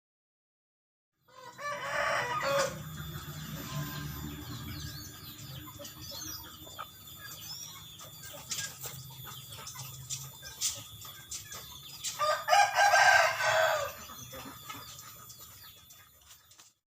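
Rooster crowing twice, once about a second and a half in and again about twelve seconds in, with faint small-bird chirps between the crows.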